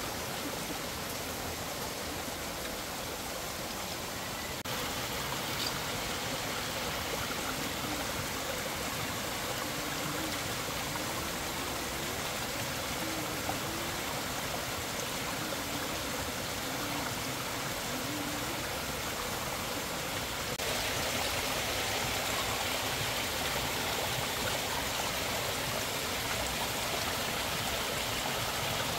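Fast river water rushing over rocks, a steady full roar of white water. It grows louder in two sudden steps, about four seconds in and again about twenty seconds in.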